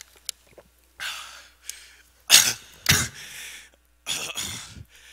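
A man coughing several times, loudest in two sharp coughs about halfway through.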